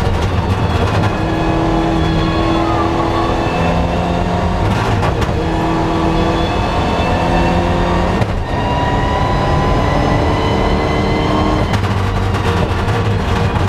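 Rally car engine heard from inside the cockpit, running hard under load on a tarmac stage. The note shifts in pitch and breaks off briefly a few times, about 5, 8 and 12 seconds in.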